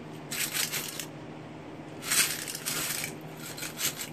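Pennies rattling and clinking against the metal of a Brandt 695 coin sorter's coin tray, in three bursts of clatter, over a low steady hum.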